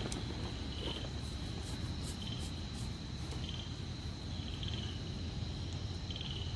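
Night insects calling: a steady high trill with short pulsed chirps repeating about once a second, over a low rumble.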